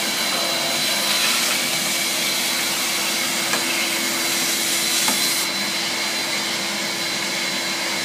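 Canister vacuum cleaner running steadily: an even rush of suction with a steady motor whine. The high part of the hiss drops a little about five and a half seconds in, and there are a couple of faint taps.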